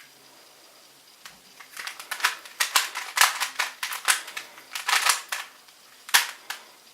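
Rubik's Cube being turned by hand: a quick, uneven run of plastic clicks and clacks as the layers are twisted, starting about a second and a half in.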